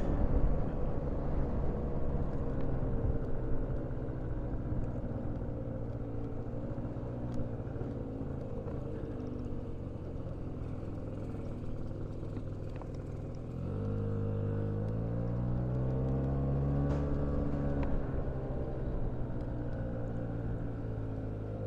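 Car engine running as the car is driven slowly, heard from inside the car. The engine note rises and grows louder about two-thirds of the way through, then eases off.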